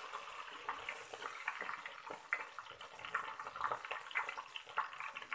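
Curry leaves frying in hot oil with cumin and fennel seeds: a steady sizzle with many scattered crackles and pops as the leaves splutter during the tempering.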